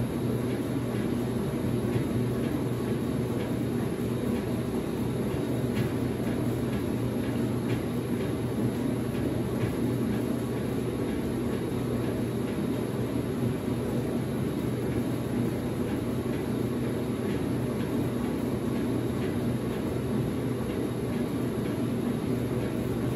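Late-1970s Maytag A806 top-load washer running steadily, its motor humming as it agitates a large load of sheets.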